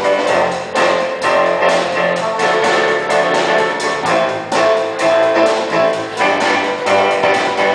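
A band playing live music with a steady beat.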